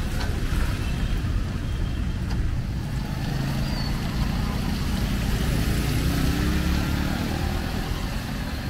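City street traffic: car engines and tyres passing in a steady low rumble. About five seconds in, one engine's pitch rises as it accelerates.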